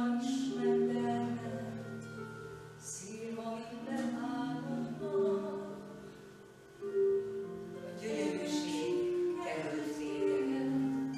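Slow music with voices singing long held notes, several notes sounding together in harmony, swelling at the start and again a few times through.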